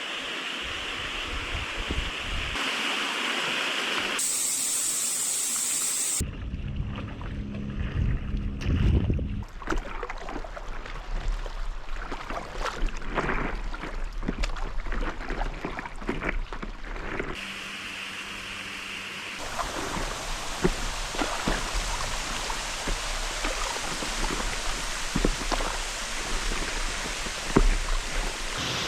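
Water splashing and lapping around a stand-up paddle board on a lake, with irregular paddle-stroke splashes. The sound changes abruptly several times.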